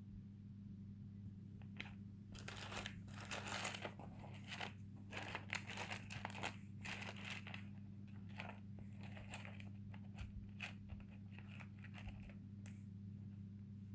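Irregular crinkling and rustling from something being handled, over a steady low hum. The handling is busiest from about two to seven seconds in and thins out to a few crackles, stopping near the end.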